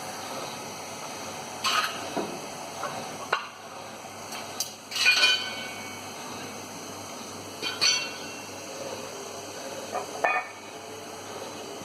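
Metal tools or parts clinking and knocking against each other: about seven separate strikes, a few ringing briefly, the loudest about five seconds in, over a steady machine hum.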